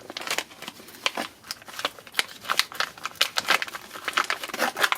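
Handling noise from brake parts being picked up and moved: a run of irregular clicks and taps with light rustling between them.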